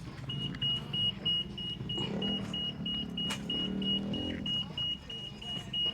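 Electronic beeper sounding a rapid, even run of short high-pitched beeps, about three a second, starting just after the start and keeping on. A single sharp click a little past halfway.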